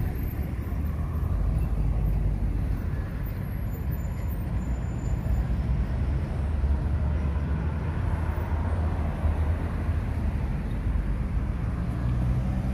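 Street traffic: a steady low rumble of cars driving past, swelling a little and easing off again.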